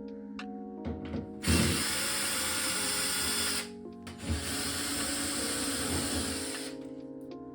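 Power drill-driver running in two runs of about two seconds each, backing out the screws that hold a dryer's exhaust duct. Sustained background music tones play underneath.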